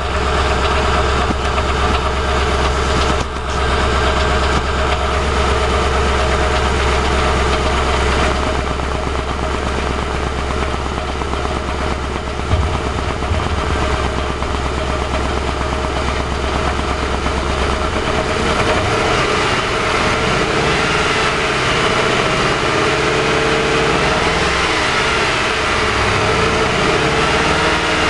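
2006 Ford Crown Victoria Police Interceptor's 4.6-litre V8 idling roughly, heard close up from the engine bay; the engine is shivering at idle. The sound changes character about two-thirds of the way in.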